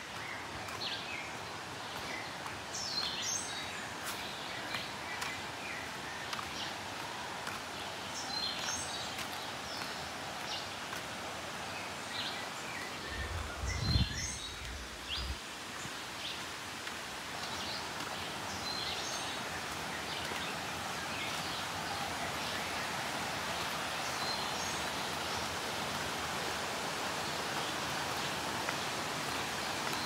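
Tropical forest ambience: a steady hiss with scattered short bird chirps, most of them in the first half. About halfway through there is a brief low rumble on the microphone, and the hiss grows a little louder toward the end.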